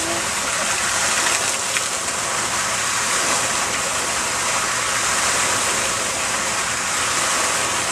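Garden fountain's water jets splashing steadily into its basin, a constant hiss.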